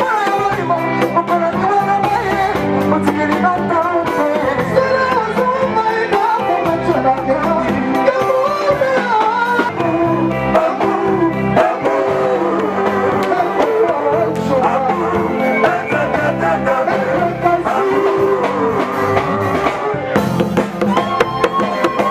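Music with singing over guitar and drums, playing continuously.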